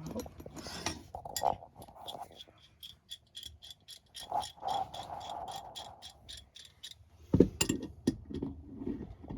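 Metal furnace gas-valve fittings and tools being handled: a run of even, rapid metallic ticks, about five a second, through the middle, then a loud knock near the end.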